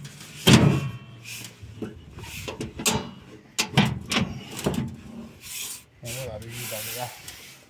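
Hinged steel drop-side of a truck bed being swung up and set upright: scraping and rubbing at the hinges, with a series of sharp metal knocks and a longer scrape near the end.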